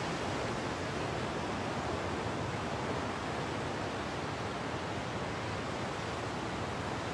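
Steady, even rushing noise of sea surf and wind at the shore.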